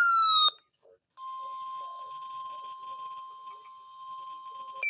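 NOAA Weather Radio warning alarm tone: a steady, single-pitch tone held for about three and a half seconds. It sits between two loud, downward-sliding electronic alert tones, one ending half a second in and the next starting at the very end.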